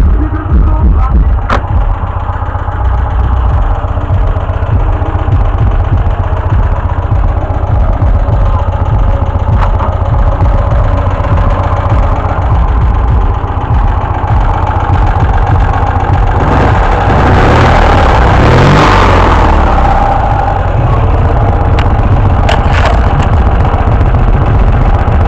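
Fiat 126p's air-cooled two-cylinder engine idling, picked up close and loud, with one brief rise in revs a little past halfway.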